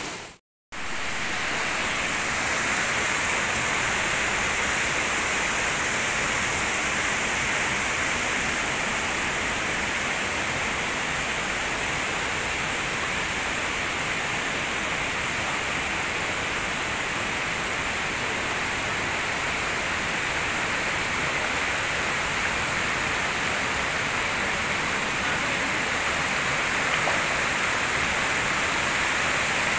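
Steady rush of a waterfall and stream water pouring over rocks, unbroken apart from a brief silent gap about half a second in.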